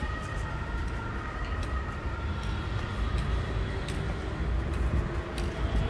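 Outdoor city street ambience: a steady low rumble of distant traffic, with a few scattered light clicks.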